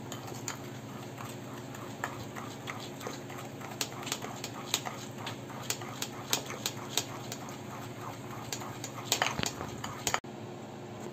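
Steel spoon stirring a thick sugar, milk and butter glaze in a ceramic bowl, clinking and scraping against the bowl in irregular sharp clicks, with a quick cluster near the end, over a steady low hum.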